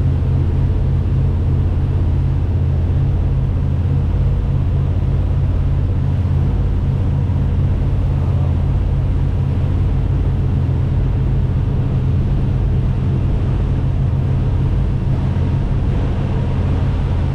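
Boat engine running steadily while underway: a loud, deep, even drone.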